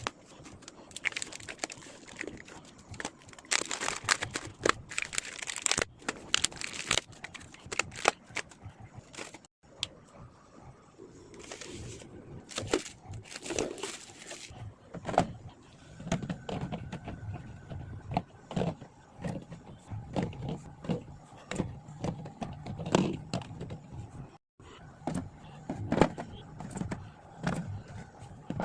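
Small plastic Yakult bottles and their plastic wrapping being handled: a run of irregular light clicks, knocks and crinkling as the bottles are unpacked and set into a fridge.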